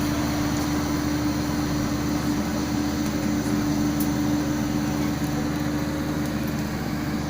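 Kobelco mini excavator's diesel engine running steadily with a constant hum.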